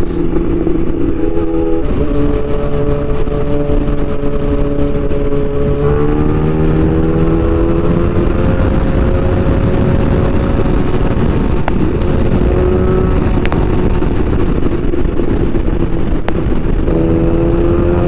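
Yamaha FZ1 motorcycle's engine running at speed under heavy wind noise on the microphone. Its note rises about six seconds in and holds high, then dips and climbs again near the end.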